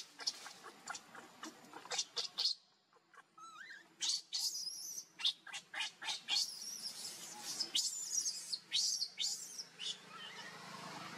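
Infant macaque screaming in distress, a rapid run of shrill squeals and chirps with a brief pause about two and a half seconds in, as its mother pins it down and drags it.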